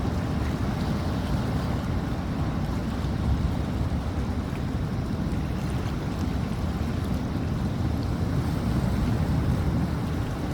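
Rough sea waves, a continuous wash of surf with no single crash standing out, with wind rumbling on the microphone.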